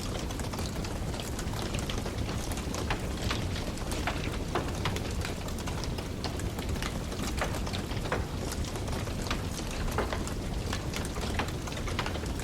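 Wood fire burning in a fireplace, crackling with frequent irregular pops and snaps over a steady low rumble.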